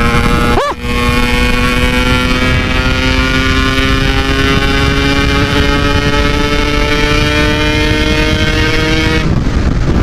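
Yamaha RX King 135cc two-stroke single running hard at speed, its note climbing slowly and steadily as it pulls, with a brief break under a second in. About nine seconds in the note drops away as the throttle is eased, with wind on the microphone.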